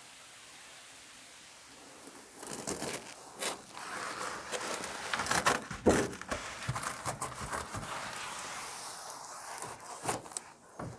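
Crinkling and rustling handling noise with several sharp knocks, starting about two seconds in after a short quiet stretch.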